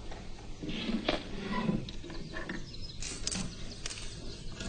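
A few light clicks and knocks of small objects being handled on a table, over a faint steady low background.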